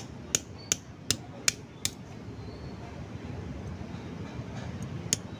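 Metal hammer striking a worn one-way bearing that is being broken open. There are five quick, sharp clanks in the first two seconds, then a steady low hum, and a lighter knock near the end.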